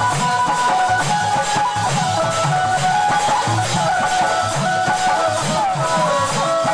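Instrumental break of a Bhojpuri devotional bhajan: a lead melody with sliding notes over a steady drum beat and regular clicking percussion.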